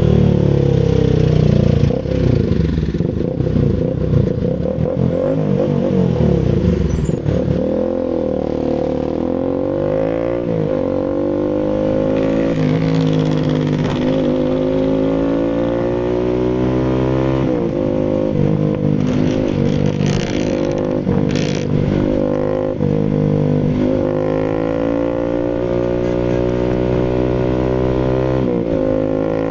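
Bajaj Rouser RS200's single-cylinder engine running through an SC Project full aftermarket exhaust, its pitch rising and falling several times as the engine is revved and eased off.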